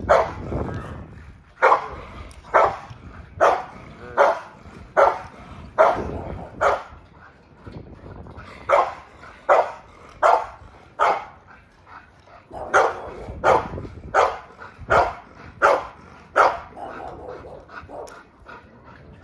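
A dog barking repeatedly, roughly one bark a second, in three runs with short pauses between, tailing off near the end.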